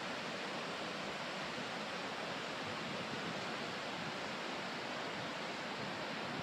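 Steady, even outdoor rushing noise with no distinct events, holding at one level throughout.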